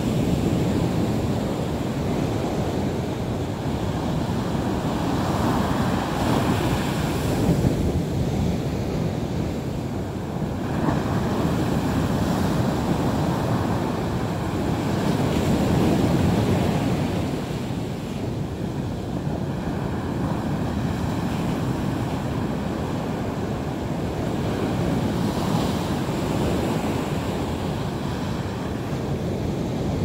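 Sea waves breaking and washing onto the shore: a continuous rushing surf that swells every few seconds as each wave comes in.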